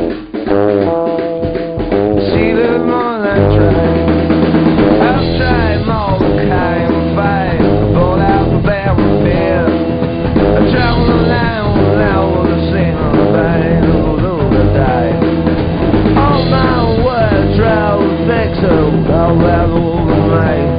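Background rock music with drums and guitar, and a sung or bending melody line over a steady bass.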